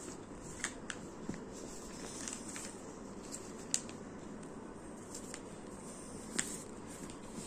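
Sheet of paper being folded and pressed flat by hand, with soft handling noise and a few sharp light ticks, the loudest a little under four seconds in and again past six seconds, over a steady faint hiss.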